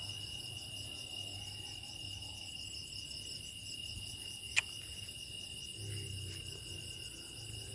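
Night insect chorus: crickets trilling steadily in several high pitches at once, with a single sharp click about four and a half seconds in.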